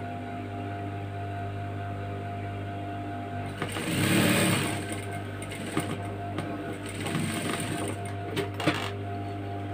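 Electric sewing machine stitching a seam in cotton fabric, its motor humming steadily, with a louder burst about four seconds in.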